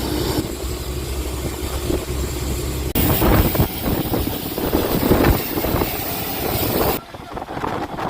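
Fishing boat's engine running steadily. About three seconds in, an abrupt cut brings loud storm wind and rain noise on the microphone, which drops away sharply near the end.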